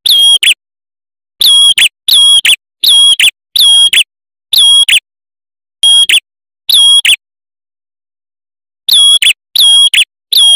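Male ashy tailorbird singing: a run of short, loud, high whistled notes, roughly two a second, each held on one pitch and ending in a quick downward flick. The run breaks off for about a second and a half near the end, then resumes. This is a lure song used to call in other tailorbirds.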